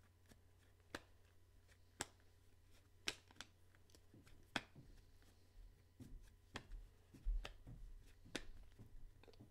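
Near silence with faint, sharp clicks and taps scattered about one a second over a low steady hum.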